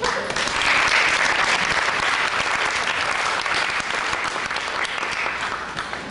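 Large audience applauding, a dense wash of clapping that starts suddenly and thins out near the end.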